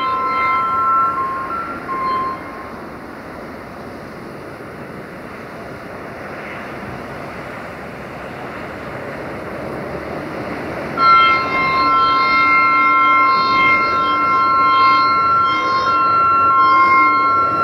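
Two-tone air horn of an approaching Romanian diesel locomotive. It gives a blast and a short extra toot in the first two seconds, then a long, steady two-note blast from about eleven seconds in. The locomotive's running noise fills the stretch between the blasts.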